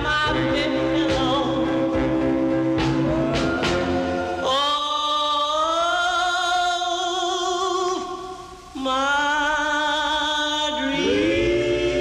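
1960 vocal-group single with a male lead and chorus over a backing band. About four seconds in, the band drops out while the voices hold a long high note with vibrato, gliding up. After a brief break they hold a second one, and the band comes back in near the end.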